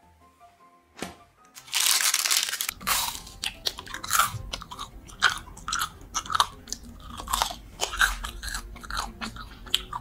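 Crunching bites and chewing of a frozen marshmallow cookie, sharp crunches coming about once a second over a low rumble. Before it, about a second in, a click and a second of rushing noise as a tall freezer door is pulled open.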